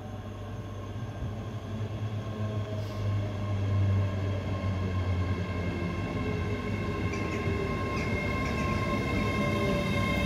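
ScotRail Class 385 electric multiple unit, two units coupled, approaching and running into the platform. Its sound builds to full loudness over the first few seconds: a rumble of wheels on rail and a steady high-pitched whine.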